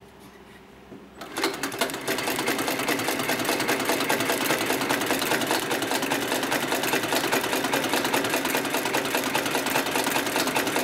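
HighTex 9204ZZ heavy-duty walking-foot zigzag sewing machine starting about a second in, then running steadily at speed with a rapid, even clatter as it stitches a zigzag seam through thick carpet.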